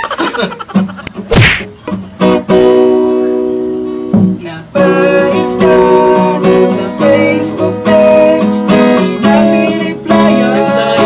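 Laughter, then a steel-string acoustic guitar strummed with chords ringing out. About five seconds in, a man starts singing in Filipino over the strumming.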